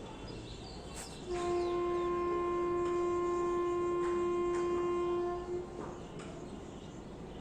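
A single steady horn blast, one unchanging pitch held for about four seconds, starting a little over a second in and cutting off sharply.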